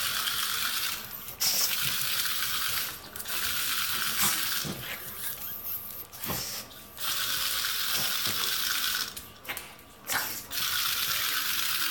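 Small electric motor of a remote-control toy crab whirring in stretches. It cuts out briefly four or five times as the crab is driven and stopped.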